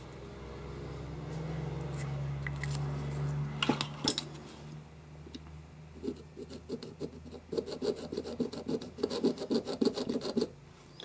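Steel caliper jaw tip scraped back and forth on an aluminium block, scribing the centre mark deeper so it shows, in quick strokes about four a second over the second half. Before that a low hum swells and there are a couple of sharp clicks.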